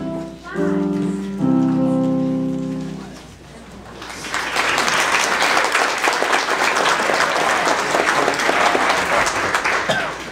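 A keyboard plays the last held chords of a piece, which fade out about three seconds in. About a second later the congregation breaks into steady applause.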